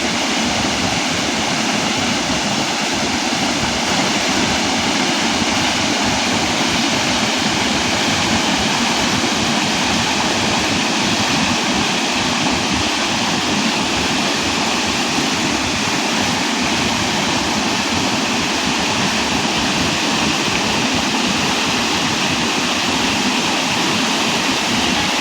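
Waterfall: water crashing down in a steady, loud, unbroken rush.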